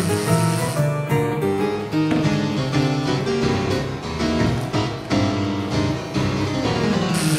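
Solo harpsichord playing a contemporary chaconne: a steady stream of plucked notes over strong bass notes.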